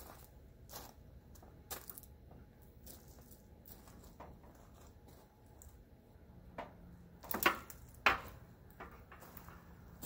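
Faint, scattered crackles and ticks, then a few loud crunching footsteps on gravel about seven to eight seconds in.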